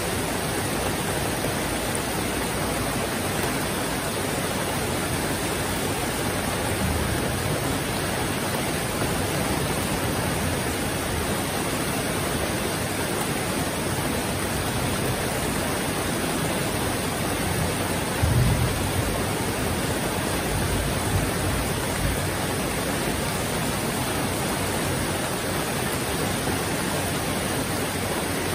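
Heavy rain falling steadily, a dense even hiss. A brief low thump stands out about two-thirds of the way through.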